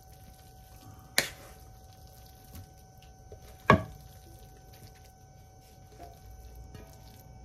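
A wooden spoon scraping a soft codfish-and-onion mixture out of a nonstick frying pan into a glass baking dish, with two sharp knocks of utensil on cookware, about a second in and just before four seconds in, over a faint steady hum.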